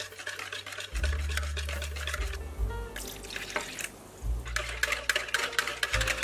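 Electronic-style music: held bass notes that change every second or two under a fast, even run of hi-hat-like ticks.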